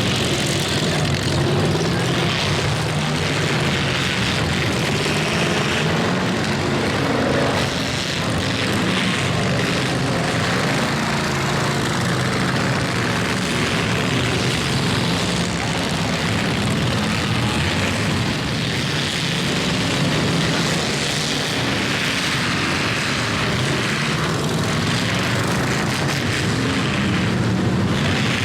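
Many demolition-derby car engines running and revving together in a steady, loud din.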